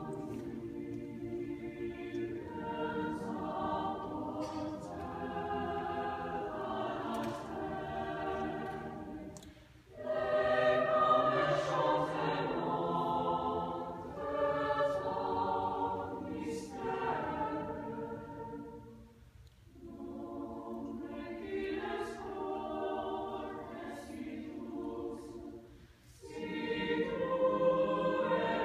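A choir singing a slow piece in long phrases, with brief pauses for breath about ten, nineteen and twenty-six seconds in; the phrases after the first and last pauses come in louder.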